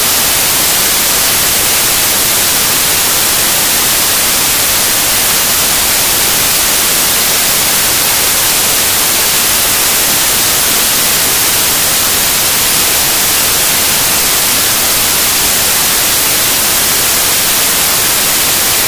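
Loud, steady static hiss with nothing else in it, strongest in the highs and unchanging throughout: a glitch in the recording, with the picture frozen, rather than any sound from the ring.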